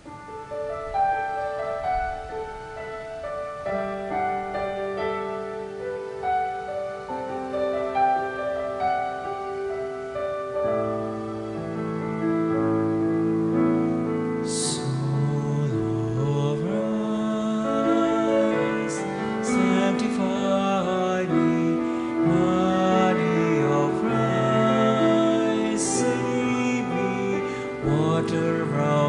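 A communion hymn on keyboard or piano, played slowly in held notes that thicken into fuller chords. Singing joins about halfway through.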